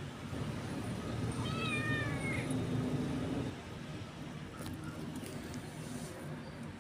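Stray kitten meowing once, about a second and a half in: a single high call lasting about a second that drops in pitch at the end. Under it is a low rumble that fades about three and a half seconds in.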